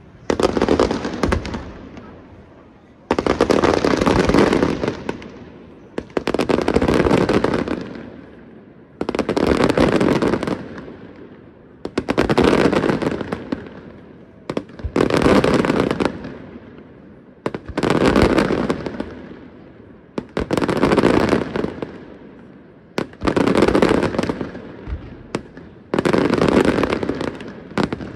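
Aerial firework shells bursting in regular volleys, about one every two and a half to three seconds, each starting suddenly with a dense crackle and fading over a second or two.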